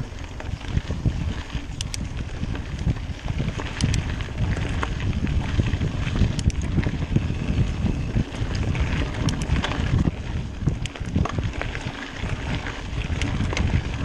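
Mountain bike ridden fast down a rough singletrack: wind buffeting the microphone over a constant rumble from the tyres, with scattered sharp clicks and knocks from the trail and the bike.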